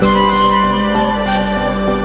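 Instrumental background music with sustained melody notes over a steady beat.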